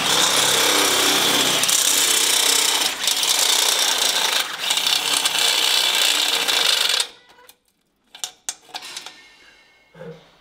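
Electric hand drill running under load, boring a 4 mm hole through the thick metal wall of an engine's exhaust bend. The drilling stops about seven seconds in, followed by a few light knocks and clicks.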